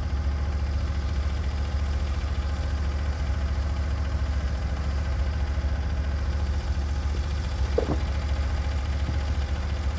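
Gas engine of a Norwood HD36v2 portable sawmill idling steadily, with a deep, even hum and no cutting, and a brief knock about eight seconds in.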